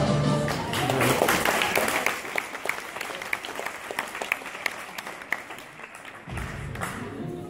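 Audience applauding as the dance music ends, the clapping starting full and thinning out to scattered single claps. New music starts near the end.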